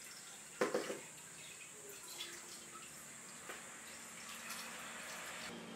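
Freshly made coconut milk trickling and dripping into an aluminium pot as grated coconut is wrung out by hand in a plastic strainer, faintly. A brief knock sounds a little over half a second in.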